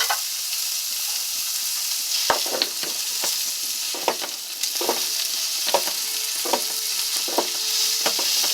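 Old-fashioned hand-cranked meat grinder being turned as it grinds beef into hamburger. A short knock comes with each turn of the crank, a little faster than once a second, over a steady wet hiss. A faint squeal joins in about halfway through.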